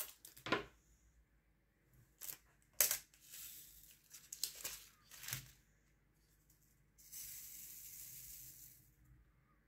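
Resin diamond-painting drills being picked up with a drill pen from a plastic tray and pressed onto the sticky canvas: scattered small clicks and taps. Near the end there is a soft rustling noise for about two seconds.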